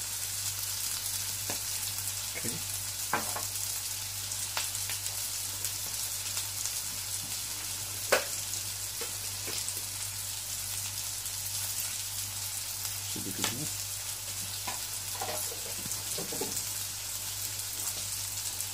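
Battered mushrooms and onions sizzling steadily in oil in a nonstick wok, with a few light clicks scattered through and a low steady hum underneath.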